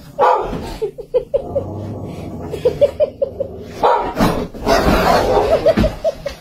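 Dogs barking and growling in short bursts, the loudest a little past the middle, mixed with runs of quick, rhythmic giggling laughter from a person.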